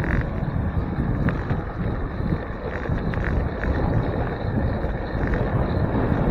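Wind buffeting the microphone of a handlebar-mounted camera on a moving bicycle, a steady low rumble with a few faint clicks.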